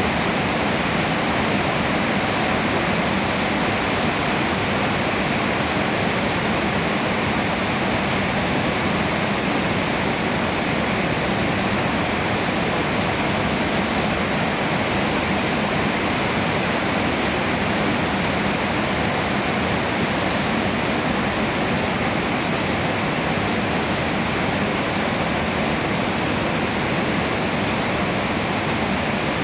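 Steady rain falling on dense tree foliage: an even, unbroken hiss that neither builds nor eases.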